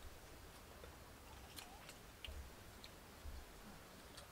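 Near silence, with a few faint, sharp clicks from people eating snails.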